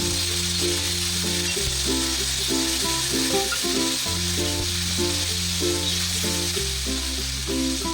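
Background music with a slow, held bass line and a plucked-sounding melody, over the steady hiss of food sizzling in a frying pan.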